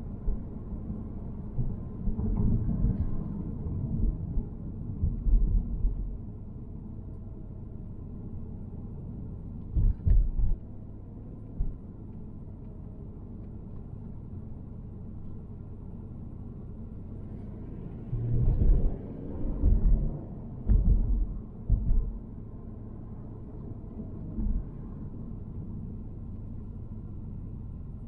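Car driving on the freeway: a steady low road rumble, broken several times by short clusters of louder low thumps.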